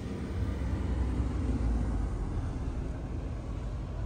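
Low rumble of a car driving along a snow-covered street, a little louder through the middle and easing off.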